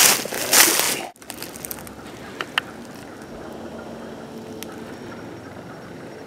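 Footsteps crunching through dry fallen leaves for about a second, cut off suddenly, leaving a quieter steady outdoor hiss with a few faint clicks.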